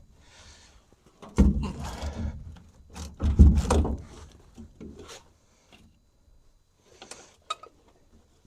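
Big hand ratchet and socket working a stubborn bolt loose: two loud stretches of straining metal noise about a second and a half and three and a half seconds in, then a few light clicks and knocks.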